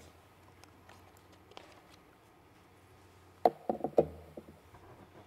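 A cluster of four or five sharp knocks and bumps about three and a half seconds in, hands handling things on a lectern and picked up close by its microphone. Before that, only faint room tone with a few light ticks.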